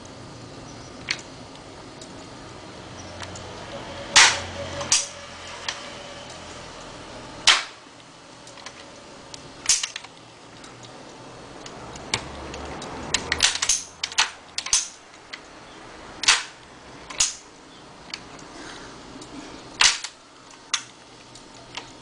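Cutaway engine model with its gearbox turning, giving a faint steady hum broken by sharp, irregular metallic clacks, about fifteen in all, with a quick run of them around the middle.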